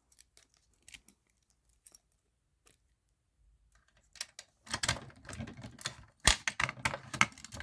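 Clicking and rattling as a fire alarm pull station is handled and reset, a few scattered clicks at first, then a busier clatter in the second half with one sharp snap.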